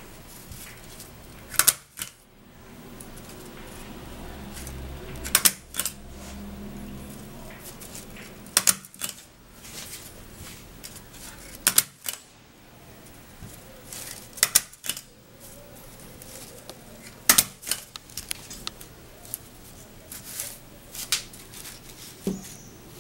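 Handheld stapler stapling paper strips together, a sharp snap every three seconds or so, about eight in all.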